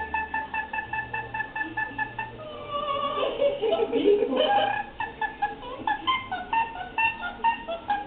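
Opera-style music with held, stepping notes, played back through a laptop's speakers from an online video of a singing parrot.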